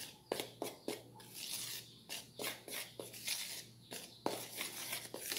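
A metal spoon stirring dry flour in a plastic bowl: irregular scrapes and light taps of the spoon against the bowl, a few each second.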